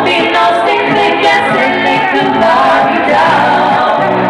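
A women's vocal trio singing a song live, with acoustic guitar accompaniment.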